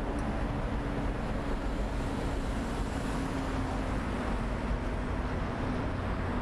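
Steady road traffic noise from a busy city street: a constant wash of passing cars with a low engine hum held through it.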